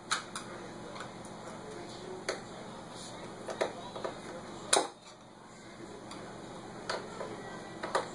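Irregular small clicks and ticks of a hand screwdriver driving screws into a laptop's plastic screen bezel, with one louder snap just before five seconds in, the bezel's bottom corner clipping into place as the screw tightens.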